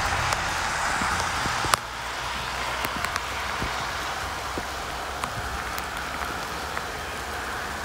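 Steady rain falling, an even hiss with scattered sharp drop ticks close to the microphone.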